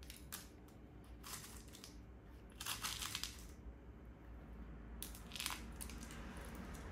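Hands handling small laptop parts and tools: a few light clicks and brief scraping rustles, the longest about three seconds in, over a faint low hum.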